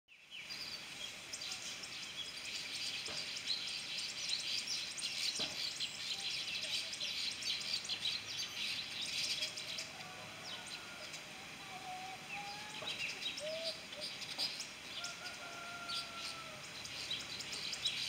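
A colony of weaver birds chattering: a dense stream of rapid, high chirps, busiest in the first half. A few longer, lower whistled notes come in the second half.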